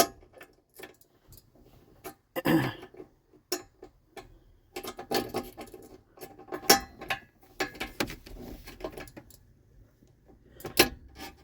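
Small metal clicks, taps and rattles of a Squarebody Chevy glovebox lock cylinder being worked into its housing by hand, in irregular scattered ticks with a few sharper clicks.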